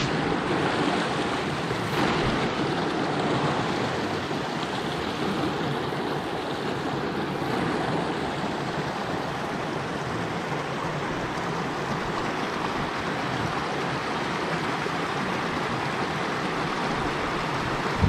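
Shallow rocky mountain stream running over stones and small cascades: a steady rush of water.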